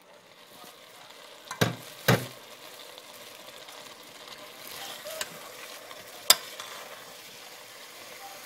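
Ground meat, onion and chopped green pepper frying with a faint steady sizzle in a stainless steel pot, lightly sautéed while a spoon stirs them. The spoon knocks against the pot a few times, sharpest about six seconds in.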